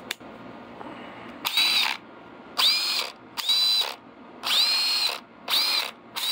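Freshly rebuilt Snap-on CT761 14.4-volt cordless impact wrench run free in about six short trigger pulls. Each pull is a burst of motor whine that rises quickly and then holds at a high pitch. It sounds "a little funky" and "doesn't sound right", which the owner vaguely suspects lies in the anvil.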